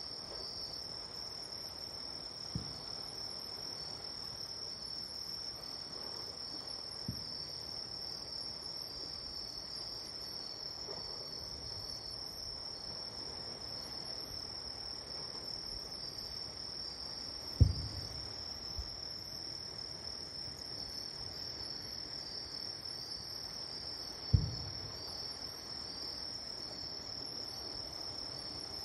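Distant fireworks shells bursting as dull low booms, four in all: two faint ones early and two much louder ones in the second half. Insects keep up a steady high chirring throughout.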